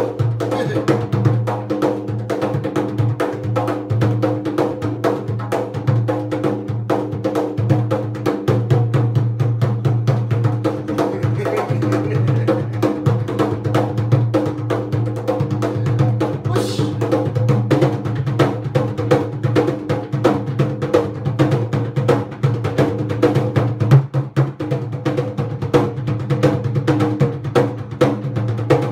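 Haitian hand drum played with bare hands in a fast, continuous rhythm of dense strokes, over a steady low drone.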